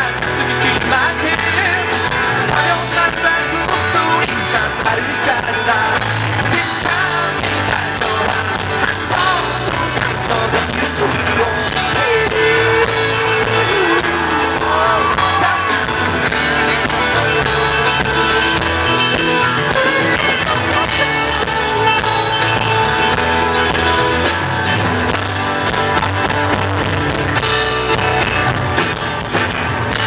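A live pop-rock band playing, with electric bass and guitar, and singing over the band.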